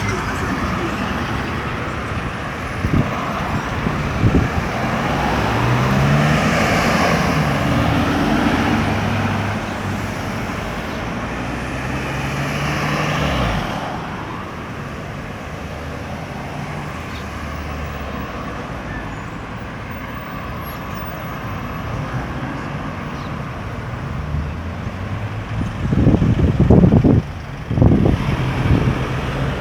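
Road traffic passing: cars and heavier vehicles going by, with engines pulling away and rising in pitch through gear changes. A louder vehicle passes close near the end.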